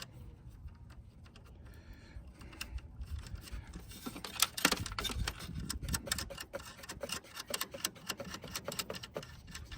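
Hands working a ground wire's terminal onto a ground lug, making small metallic clicks and scratches. Only faint handling at first, then quick, irregular clicking from about four seconds in.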